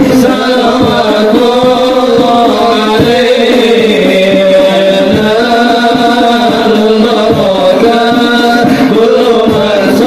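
Hadroh devotional music: sholawat sung to a melody over steady frame-drum beats.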